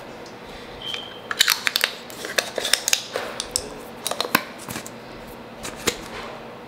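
Kitchen items handled on a counter: a run of quick, irregular clicks and light knocks as a plastic-lidded spice jar and a knife are picked up and set down by a wooden cutting board, thinning out after about four seconds.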